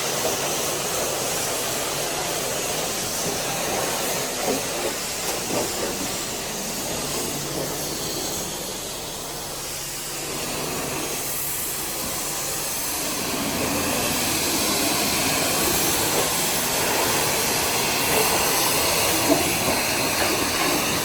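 Pressure washer spraying water, a steady hissing rush that eases briefly about halfway through and then comes back louder.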